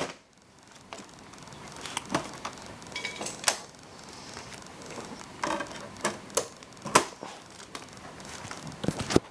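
Close handling noise: irregular clicks and knocks over low rustling, with the sharpest click about seven seconds in.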